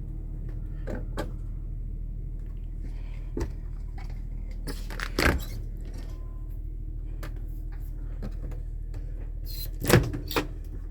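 Several sharp knocks and clunks, the loudest near the end, over a steady low hum.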